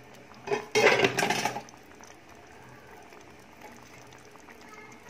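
Prawn and karonda curry simmering in a kadai, bubbling faintly and steadily as it cooks down to thicken. A brief, louder burst of noise comes about a second in.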